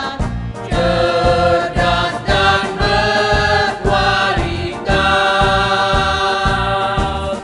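A choir of women singing an Indonesian song in unison, with long held notes, over a backing track with a steady beat. The line sung is 'agar mereka jadi generasi penerus yang sehat, cerdas dan berkualitas'.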